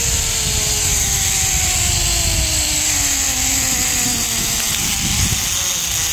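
Zipline trolley pulleys whining along the steel cable, the whine falling steadily in pitch as the rider slows toward the landing platform and fading about halfway through. Wind rushes and buffets over the microphone throughout.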